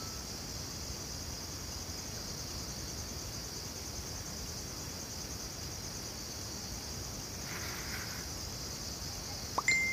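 A steady, high chorus of chirring insects, with a short tone near the end.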